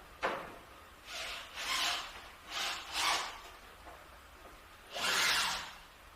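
A short knock, then five separate rubbing strokes of about half a second each, the last one longest.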